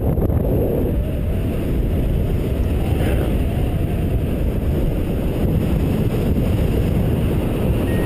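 Airflow buffeting the microphone of a camera on a flying paraglider: a steady, loud low rumble of wind noise.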